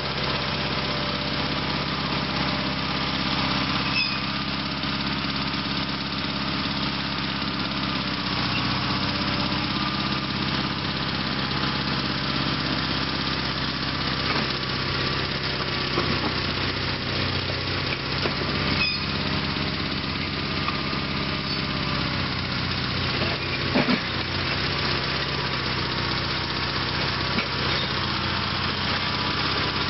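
Sears SS/16 garden tractor's 16 hp Onan engine running steadily under load as the tractor pushes dirt with its front dozer blade, with a few brief knocks along the way.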